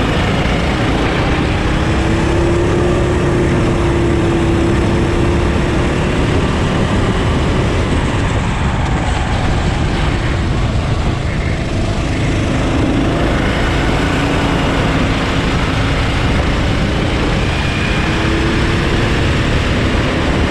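390cc four-stroke kart engine running hard, heard from on board the kart. Its pitch climbs in the first few seconds, drops and thins around the middle as the kart goes through a corner, and picks up again near the end.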